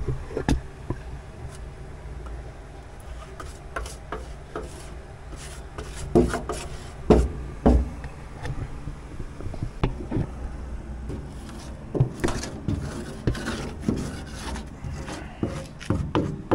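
Paintbrush scrubbing and dabbing glue onto aluminium sheet: irregular brushing scrapes with scattered clicks and a few louder knocks, the loudest between about six and eight seconds in.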